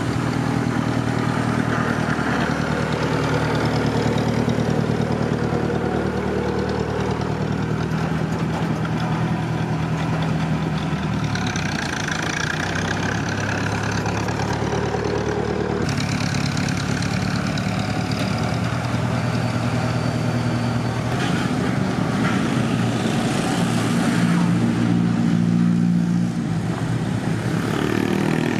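Road rollers' engines running steadily while compacting fresh asphalt: first a steel-drum tandem roller, then, after an abrupt change about halfway through, a rubber-tyred roller.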